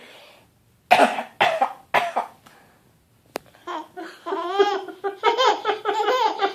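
A six-and-a-half-month-old baby giving three short fake coughs about a second in, followed by a brief click and then a stretch of high-pitched vocalizing that rises and falls in pitch.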